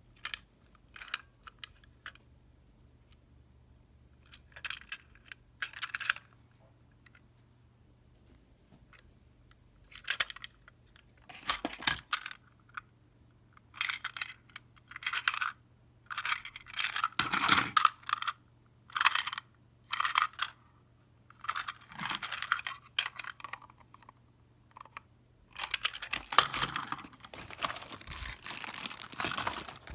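Packaging of a Plarail toy train set being handled and opened: irregular rustles, taps and clicks of cardboard and plastic, turning into continuous crinkling near the end.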